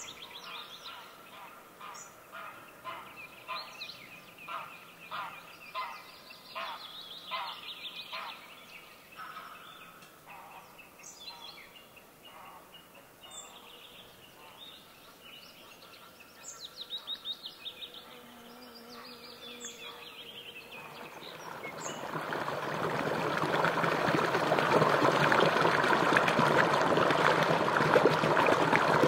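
Birds calling, with a run of evenly repeated calls for the first eight seconds or so, then scattered calls. From about two-thirds of the way through, the steady rush of a small shallow stream comes in, grows louder and takes over.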